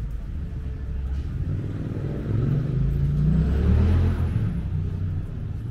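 Low engine rumble, like a vehicle passing close by, swelling to its loudest a little past halfway and easing off toward the end.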